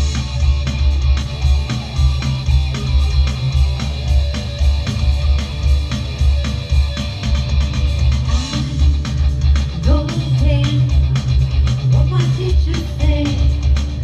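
Live rock band playing: electric bass, drum kit with a steady beat, and electric guitar. A woman's singing voice comes in about halfway through.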